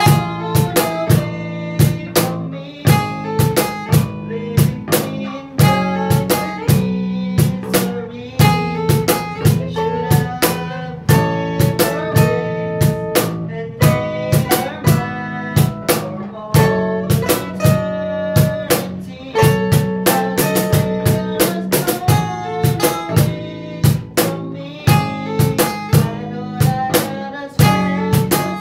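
Instrumental passage of a pop-rock song played live: strummed acoustic guitar chords with a second guitar, over steady hand percussion struck several times a second on a box drum (cajón).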